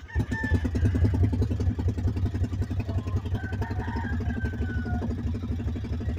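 Small engine of a ride-on farm vehicle picks up speed from a slower, quieter run right at the start, then keeps running steadily at a low, even speed with a rapid pulsing beat.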